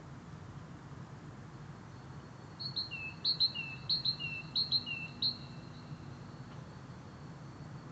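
A songbird singing one phrase of repeated notes about three seconds long, starting about two and a half seconds in: high notes, each followed by a short whistle that falls in pitch.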